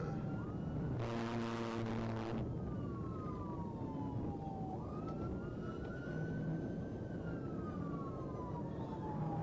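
Police car siren wailing in slow falling and rising sweeps, with a brief buzzing horn blast about a second in that lasts under a second and a half.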